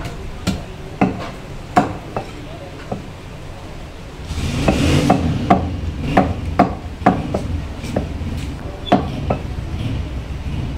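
Butcher's cleaver chopping goat meat on a wooden stump block: a dozen or so sharp chops at an uneven pace, some in quick pairs. About four seconds in, a brief rush of noise comes up, and a low rumble carries on under the later chops.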